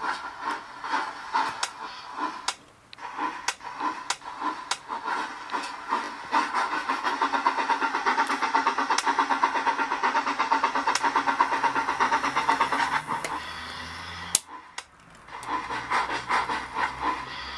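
Digital sound of a model steam locomotive chuffing in a rhythm that quickens and grows dense about six seconds in. The chuffing eases off, breaks briefly near the end, then resumes.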